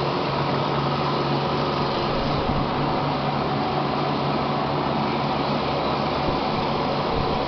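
Steady machinery hum with a low drone and an even whirring noise over it.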